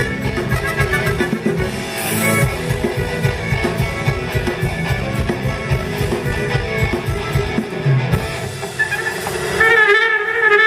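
Live band music: a steady rhythmic strummed accompaniment with melody instruments over it; the low rhythm thins out past the middle and a held melody line comes in louder near the end.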